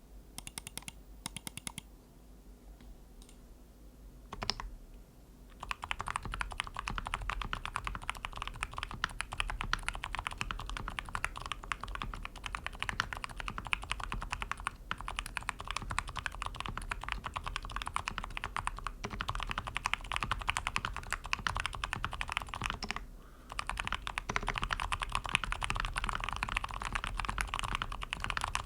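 Typing on a Mode65 mechanical keyboard with hand-lubed TTC Bluish White tactile switches, damped at the bottom-out, on an aluminium plate with foam and tape mods and GMK keycaps. A few scattered keystrokes come first, then steady fast typing from about six seconds in, with one brief pause near the end.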